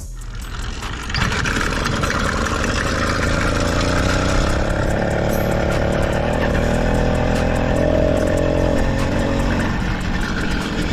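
Small gas engine of a motorized bicycle running under way, its pitch climbing slowly for several seconds, then easing off near the end. The engine is still being broken in.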